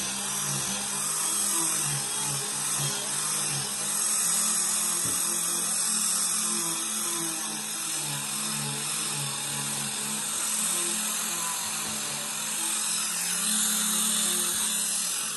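Electric angle grinder with a sanding disc running against the edge of a wooden tabletop, a steady abrasive hiss over the motor, its pitch shifting slightly as it bears on the wood.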